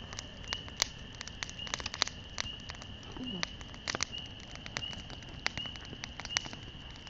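Wood campfire crackling, with irregular sharp pops, some much louder than others.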